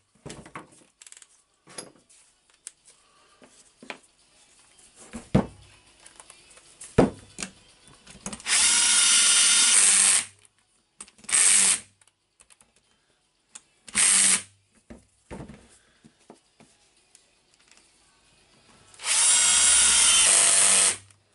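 Cordless drill-driver running in bursts as it drives the housing bolts of a rotary hammer: a long run about eight seconds in, two short runs, then another long run near the end. Two sharp knocks come earlier, between handling clicks.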